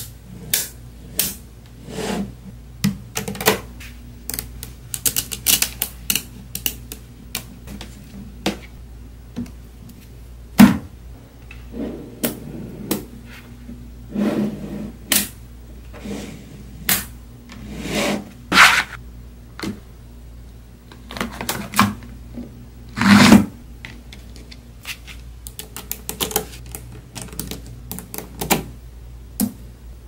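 Small magnetic balls (neodymium magnet spheres) clicking and clacking as blocks of them are snapped together and pressed into place by hand: irregular sharp clicks with short rattles, a few louder clacks about ten seconds in and again past the twenty-second mark.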